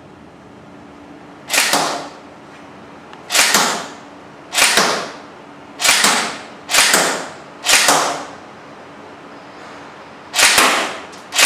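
Tokyo Marui M4 SOPMOD airsoft electric gun (AEG) fired shot by shot, eight single shots at uneven spacing of about one to two and a half seconds. Each shot is sudden and fades over about half a second.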